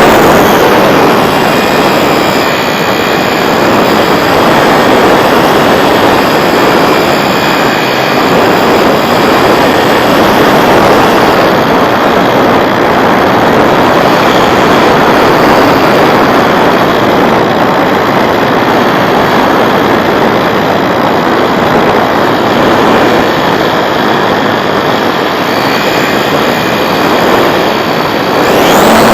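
Radio-controlled Piper Super Cub model in flight, its motor and propeller running steadily under heavy wind rush from a camera mounted on the plane, the pitch drifting slightly as the throttle changes.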